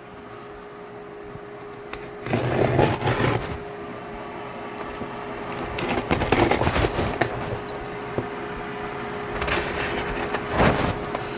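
Cardboard box and packaging being opened and handled: bursts of scraping, rustling and knocking about two seconds in, again around six seconds and near the end, over a steady faint hum.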